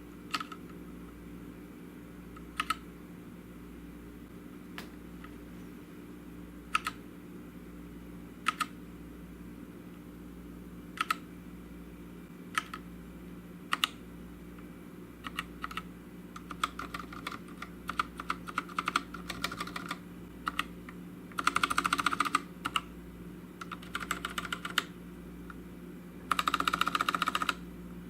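Keys of a GMMK TKL mechanical keyboard being pressed: single clacks every second or two at first, then quicker typing, with two dense, fast flurries of keystrokes near the end.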